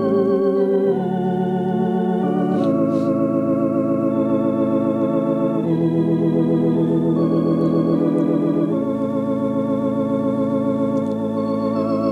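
Organ playing a slow invitation hymn in long held chords with a wavering vibrato, the chord changing every few seconds.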